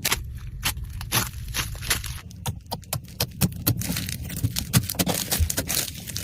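Slime being pressed and worked by hand, giving dense, irregular crackling and popping clicks.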